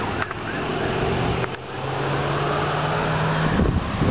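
A steady low engine hum, as from a car on the street, under rushing wind noise; near the end the hum gives way to heavier wind buffeting the microphone as the storm's gusts arrive.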